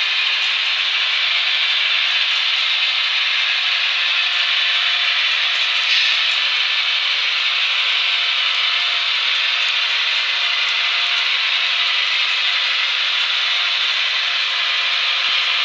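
Long model freight train rolling up a track helix, its many wagon wheels on the rails making a steady rushing rumble.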